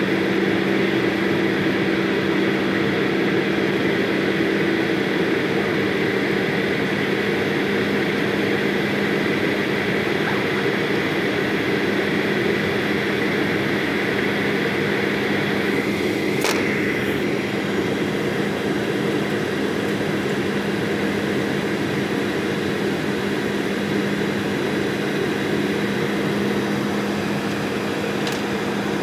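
Steady jet engine and airflow noise heard inside an airliner cabin, with a low steady hum. There is one sharp click a little past halfway and a fainter one near the end.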